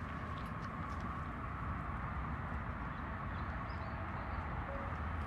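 Steady outdoor background noise with a low rumble; no barking or other clear dog sounds.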